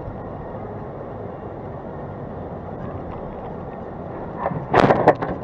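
Steady engine and road noise heard from inside a car driving slowly, picked up by a dashcam. Near the end a loud, sudden noisy burst lasting about half a second.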